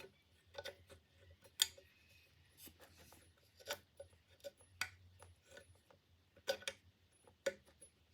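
Light metal clicks and clinks at irregular intervals as the parts of a Stanley corrugated hand plane are handled and taken apart. The sharpest click comes about a second and a half in.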